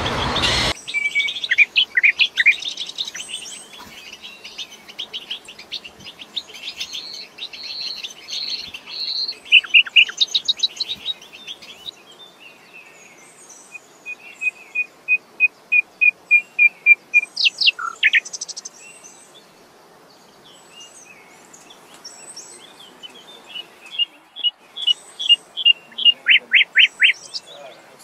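A songbird singing a varied song. Phrases of fast repeated notes, trills and short whistles come in separate bursts, with short pauses between them.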